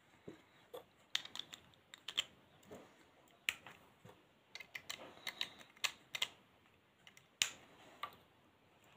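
Faint, irregular plastic clicks and taps from handling a Bruder toy light and sound module and its orange beacon light, a dozen or so scattered through, the loudest about a third of the way in and near the end.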